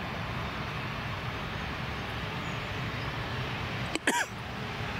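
Steady, distant engine rumble of an Airbus A380 moving along the runway. About four seconds in, a sharp click and a short chirp break in briefly.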